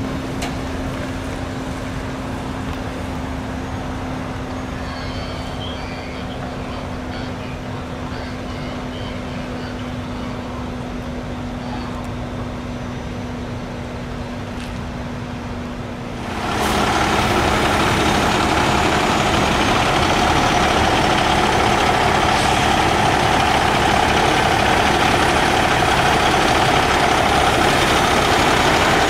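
Heavy-haul semi truck's diesel engine running: a steady, quieter drone for about half the time, then, after a sudden jump about halfway through, a louder, close-up diesel idle that holds steady.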